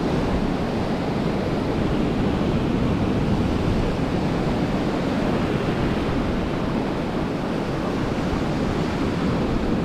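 Surf breaking and washing around the shore, with wind buffeting the microphone: a steady rush of noise, heaviest in the low end.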